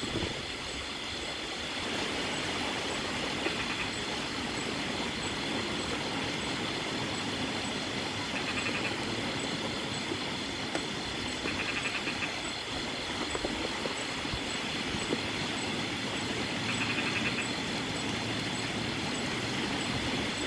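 Steady rain falling and wind blowing through coconut palms, an even rushing hiss. A few brief, faint trills break through at intervals.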